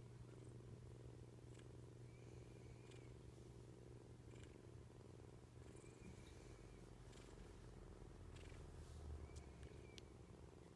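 Kitten purring softly and steadily, with a faint short high tone recurring about every three seconds.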